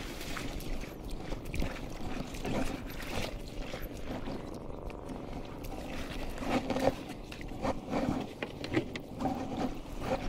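Rustling and crunching of dry grass and shrubs as someone pushes through marsh-edge vegetation on foot, with a few short low calls over the last few seconds.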